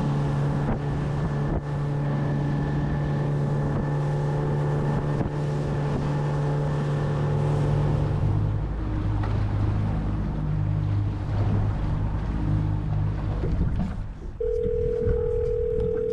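Outboard motor on a small aluminium boat running under way, with wind and water rushing past. A little past halfway the engine note drops as it is throttled back, and it quietens near the end, where a steady tone sounds for about two seconds.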